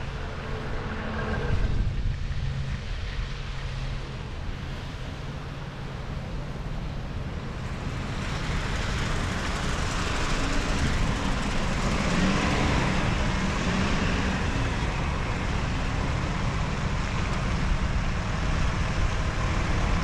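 City traffic heard from a moving bicycle: wind rumbling on the action camera's microphone and tyres on wet pavement, growing louder about halfway through, as a city bus's engine passes at a crossing.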